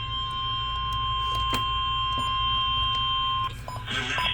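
NOAA Weather Radio warning alarm tone, a steady single high beep over a low background hum. It cuts off about three and a half seconds in, and noisy radio audio starts near the end. The tone signals that a warning, here a tornado warning, follows.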